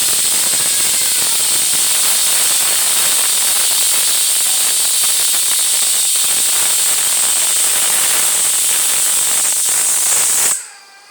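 Pressure cooker whistle venting steam as the weight on the vent lifts at full pressure: a loud, steady, high-pitched hiss. It stops abruptly near the end.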